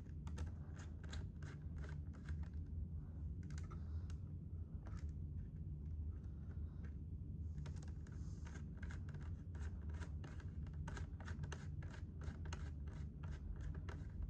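Hand tools working on the iMac G5's screws and metal parts: many quick light clicks and scrapes, coming faster and more evenly from about halfway in, over a steady low hum.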